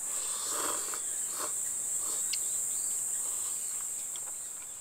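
Steady high-pitched chirring of insects, with a man slurping noodles about half a second and again about a second and a half in.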